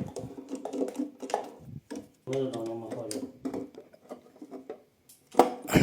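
Indistinct low talking in a small room, with scattered light clicks and a loud rustling knock near the end.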